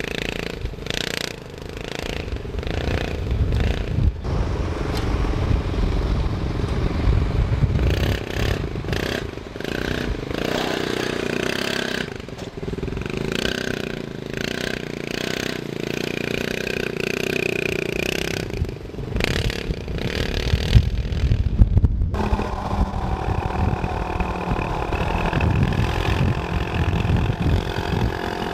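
A GIO GT2502s 250cc dune buggy's engine running and revving as it drives over grass and pavement, with heavy wind rumble and knocks on the microphone. About three quarters of the way through the sound changes abruptly to the engine heard steadily from on board at cruising speed.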